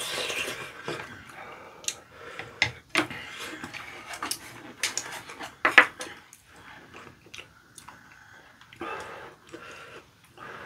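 Spoons and chopsticks clicking and scraping against ceramic bowls while eating curry rice, in irregular sharp clinks with one louder clink about halfway through.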